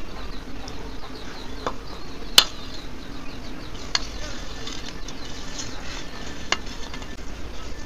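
Food being mixed on a plate for eating, with a few sharp clicks of a utensil against the plate, the loudest about two and a half seconds in.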